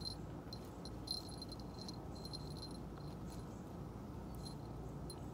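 Quiet outdoor background: a steady low rumble with short, faint, high-pitched chirps about every second.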